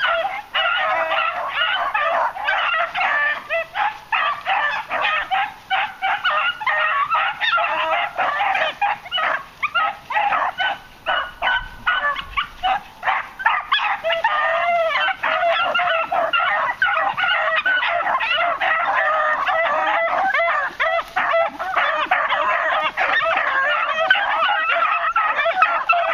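A pack of beagles baying together, a continuous chorus of many overlapping voices that thins briefly about ten seconds in. The hounds are giving tongue while running a rabbit's scent.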